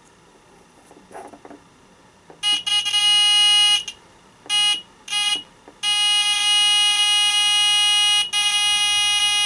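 Round buzzer rated 2 to 6 volts, run on 3 volts from two AA batteries, giving a loud, steady, shrill buzz. It sounds in bursts as its wires are touched to the battery terminals: one starting about two and a half seconds in, then two short blips, then a long run broken once near the end.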